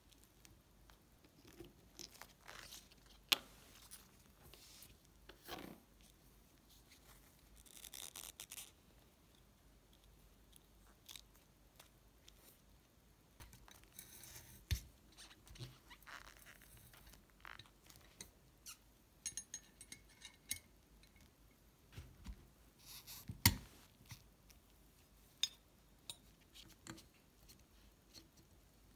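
Scattered small clicks, taps and scrapes of the polished brass parts of an antique Barthel gasoline blowtorch being fitted and screwed together by gloved hands, with a few sharper metal clicks and a screwdriver turning a small screw near the end.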